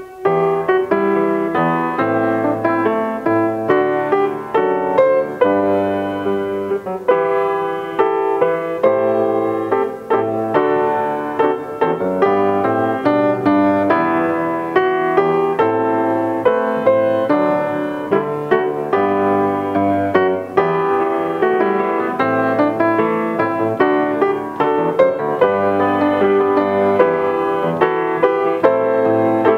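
Solo piano playing an instrumental piece, an unbroken succession of notes and chords.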